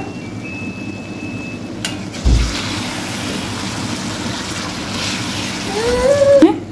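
Minced meat and green chillies frying and sizzling in a wok while a metal spatula stirs and scrapes it, with one sharp knock of the spatula on the pan. A brief rising voice-like tone comes near the end.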